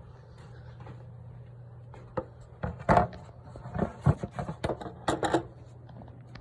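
A loose series of sharp knocks and clunks, as of hard parts being handled and set down, starting about two seconds in and stopping near the end, over a steady low hum.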